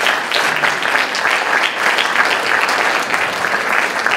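Audience applauding, many people clapping at a steady level.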